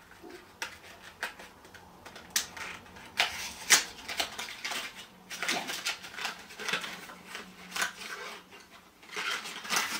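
Cardboard headphone box being handled and opened, with its insert slid out: irregular light clicks, taps and rustles, the sharpest about three and a half seconds in.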